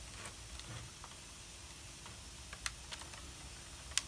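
Plastic case of a Dell Inspiron laptop clicking and snapping as its palm rest is pried up with a plastic pry tool: a handful of sharp, separate clicks, the loudest near the end.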